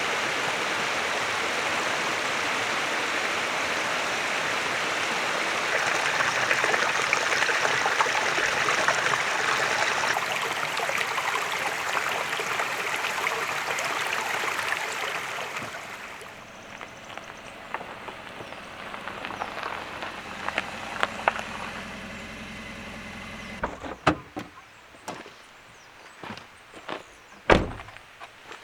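A car driving with steady road and cabin noise, which fades after about sixteen seconds; a low engine hum then runs on and stops suddenly when the engine is switched off. Sharp knocks and clicks follow, like a car door and gear being handled, with one loud knock near the end.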